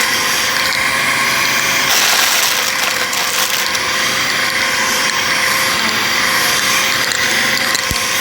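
Bissell vacuum cleaner running steadily, with a constant motor tone.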